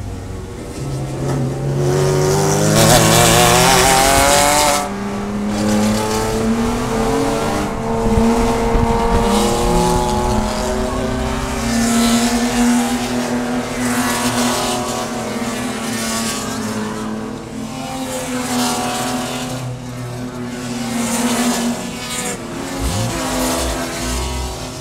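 Inside the cabin of a Porsche race car on a wet track, the engine revs hard with a rising, wavering pitch over a loud hiss of spinning tyres for a few seconds, the wheelspin as too much throttle sends the car into a spin. It drops away suddenly about five seconds in. The engine then runs at a steady idle while the car slides to a stop, and another car passes near the end.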